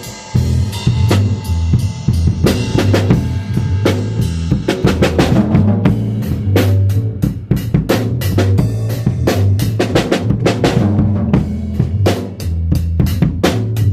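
Drum kit playing a fast, steady beat of bass drum and snare hits over a sustained deep bass, with a brief drop-out right at the start.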